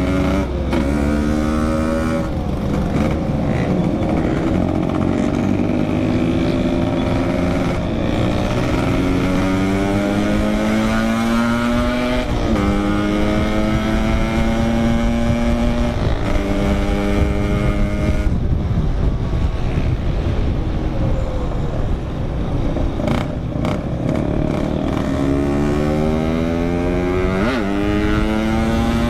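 Yamaha RX-King's 135cc two-stroke single-cylinder engine pulling through the gears on the move, its pitch climbing and then dropping sharply at each upshift several times over, with a low wind rumble on the microphone.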